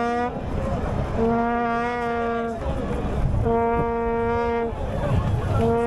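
A horn sounding repeatedly in long blasts of one steady pitch, each a second or more, about every two seconds, over the noise of a crowd.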